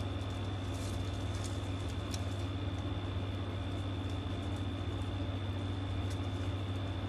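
Steady low electrical hum with a thin high-pitched whine above it. A few faint light crackles come from ribbon being folded by hand.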